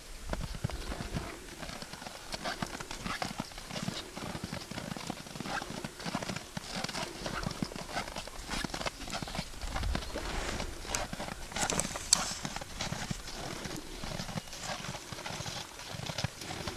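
A horse walking on snow: an uneven, continuous run of hoofbeats crunching on the snow, with one louder knock about twelve seconds in.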